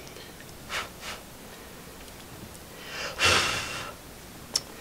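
Quiet handling of a mini shotgun microphone and its foam-lined case: a couple of faint taps, a breathy rush of noise of about a second midway, and one sharp click near the end.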